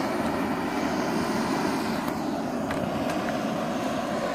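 Handheld gas jet torch burning with a steady rushing hiss as its blue flame is played over a motherboard, with a few faint sharp ticks in the second half.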